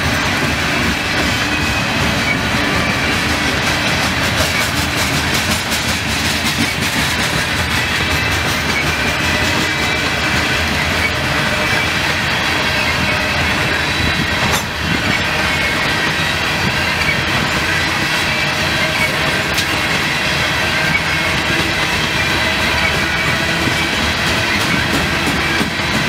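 Freight train of hopper cars rolling past: steady wheel-on-rail rumble and clatter, with a thin steady high-pitched whine from the wheels.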